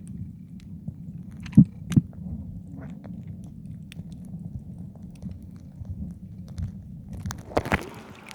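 Muffled sound of a camera held under the sea surface: a steady low rumble of water against the camera, with a few sharp clicks and knocks, two close together about a second and a half in, and a louder rustling splash near the end.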